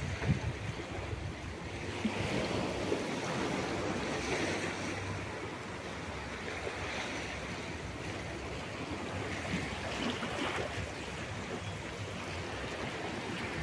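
Sea surf breaking and washing ashore, with wind on the microphone. The wash swells louder twice.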